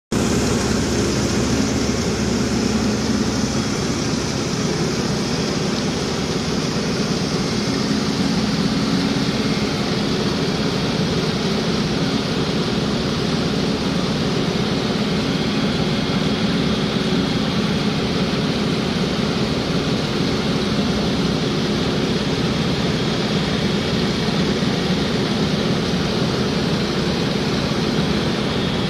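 Banana vibrating screen running empty on a test bench: steady, unchanging mechanical noise of its motor-driven exciters and shaking deck.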